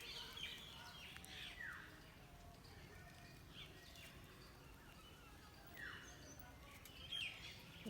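Faint background with scattered small bird chirps, including two short falling calls, one about two seconds in and one about six seconds in.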